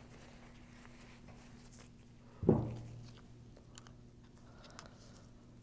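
A single sharp knock about two and a half seconds in, then a few light metal clicks of a screwdriver working the pin inside the Graco E-10 pump's housing, over a low steady hum.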